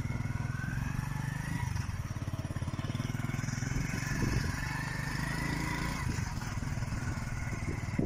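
A small engine running steadily with an even low putter.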